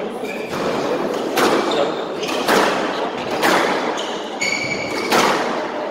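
Squash rally: the ball cracking off racquets and the walls, four sharp hits about a second apart, with a short squeak of a court shoe on the wooden floor just before the last hit.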